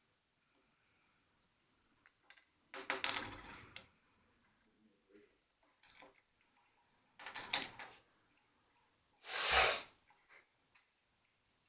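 A coin and a paperclip clinking and rattling on a hard surface as cockatiels push and toss them, in several short bursts with pauses between, and a short rushing noise near the end.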